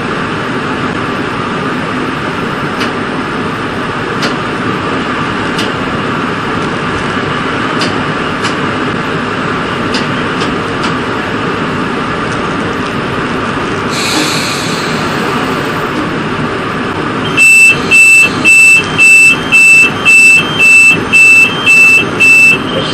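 UTA FrontRunner commuter train running at speed, heard from the head-end cab: steady rail and running noise with light scattered clicks and a short hiss about two-thirds of the way through. Near the end a loud run of about ten electronic beeps, roughly two a second, sounds for five seconds and then stops.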